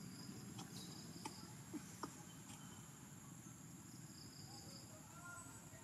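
Faint outdoor ambience: insects chirping faintly over a low steady background hum, with a few soft clicks in the first half.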